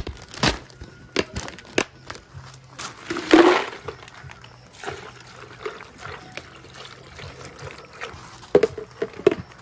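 Ice from a bag clattering into an empty plastic-lined Stanley water jug about three seconds in, with short knocks as it is handled, then water from a plastic bottle pouring and trickling into the jug.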